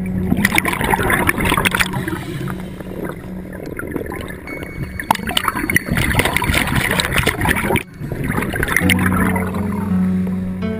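Scuba diver's exhaled bubbles streaming from the regulator, a crackling gurgle heard through the water, in two long exhalations; a steady low tone sits under it at the start and comes back near the end.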